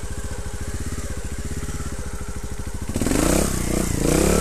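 Trials motorcycle engine ticking over steadily, then revved hard about three seconds in, the pitch rising and wavering as the rear tyre fails to grip on slippery wet mud.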